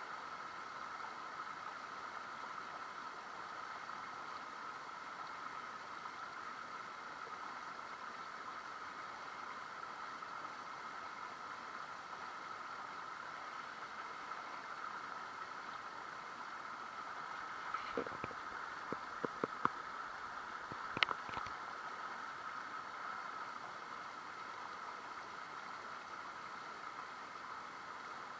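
River water flowing steadily. About two-thirds of the way in there is a brief run of sharp clicks or knocks, and the last of them is the loudest.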